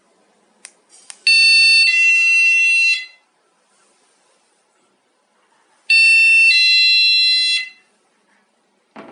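HENDUN wireless door/window alarm going off twice, each a loud electronic blast of under two seconds that shifts pitch once partway through. A couple of faint clicks come just before the first blast, and there is a short thump near the end.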